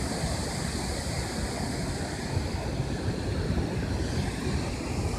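Steady rushing of water pouring through the dam, with wind buffeting the microphone.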